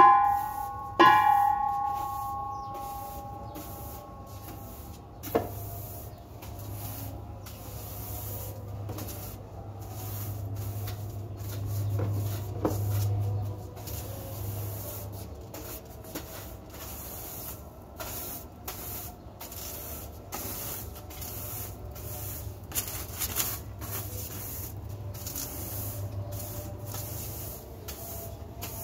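Broom sweeping fine sand dust across a tiled floor: repeated swishing strokes of the bristles. Right at the start there are two ringing clinks.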